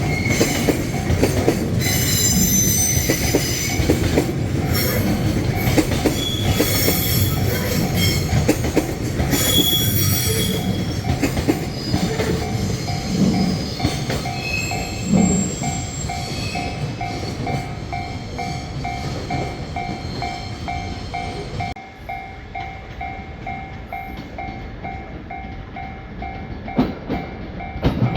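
Japanese level-crossing warning bell ringing steadily, about two to three strokes a second, over the rumble and high wheel squeal of a train passing through the crossing. The train noise drops away about three-quarters of the way in while the bell keeps ringing.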